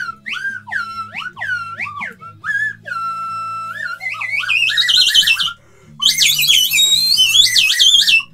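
Slide whistle played in quick swooping glides up and down, with a held note about three seconds in. After a short break it returns louder and higher in rapid wavering swoops, which stop abruptly at the end.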